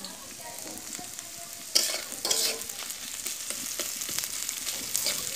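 Sliced onions sizzling steadily in hot oil in a metal karahi, with a metal spatula scraping and stirring them against the pan. The scraping is loudest about two seconds in and again near the end.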